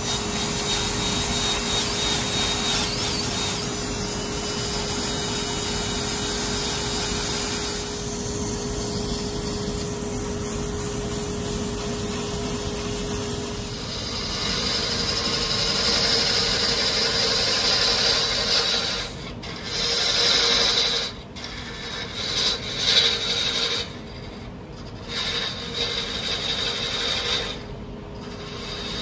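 Wood lathe spinning a live-edge oak vase while a drill-driven sanding disc rubs against it: a steady rubbing sound with a steady hum under it. From about halfway the sound shifts and breaks off briefly several times.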